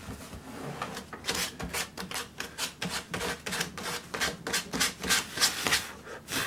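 Foam sanding sponge rubbed back and forth over carved wood leaves in quick, even strokes, about three a second, starting a little over a second in. These are light finish-sanding passes over the carved edges.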